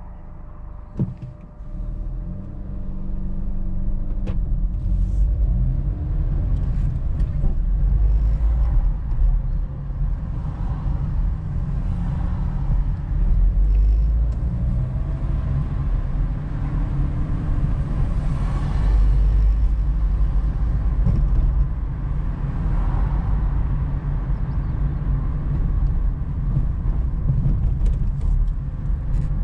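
Car engine and tyre road noise heard from inside the cabin. A knock about a second in, then the car pulls away and the noise rises about two seconds in, settling into a steady driving rumble.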